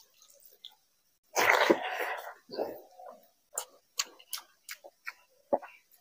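Eating rice and thin curry by hand: a loud breathy noise about one and a half seconds in, then chewing with quick wet mouth clicks and lip smacks.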